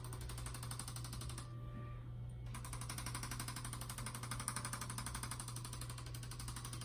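Handheld electric percussion massager hammering rapidly on a patient's neck, a steady fast buzzing rattle used to loosen a stiff neck. About a second and a half in, the sharper part of the rattle drops away for about a second, then returns.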